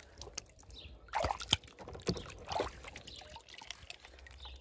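A hand sloshing in a plastic tub of water, with a few short splashes and trickles as a toy car is fished out and lifted dripping.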